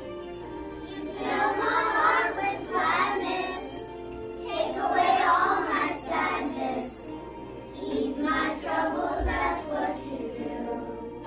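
A group of young children singing a song together, in several phrases with short breaks between them.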